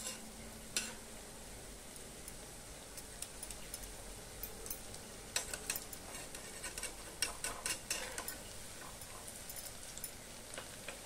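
Moong dal pakoras deep-frying in hot oil in a steel kadhai, a steady sizzle, with sharp metal clicks and scrapes as a steel spatula turns them against the pan, at the start, about a second in, and in a busy run midway.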